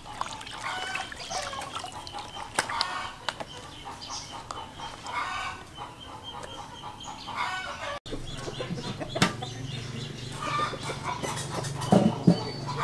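Domestic chickens clucking on and off, with some light splashing of water early on. A low steady hum comes in about two-thirds through, and two sharp knocks land near the end.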